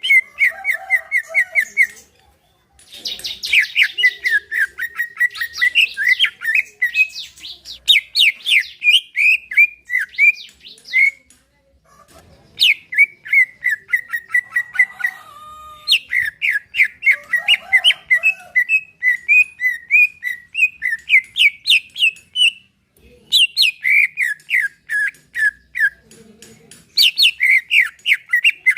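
Cucak ijo (green leafbird) singing: long runs of quick, repeated slurred chirps, several a second, broken by a few short pauses.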